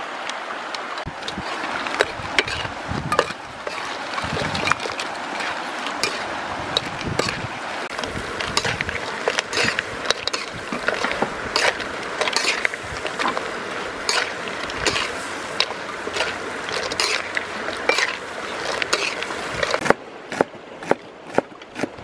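A metal spatula scrapes and clatters against a wok as whole field crabs in their shells are stir-fried, over a steady hiss. Near the end the hiss drops and a cleaver chops spring onions on a wooden board in sharp knocks about twice a second.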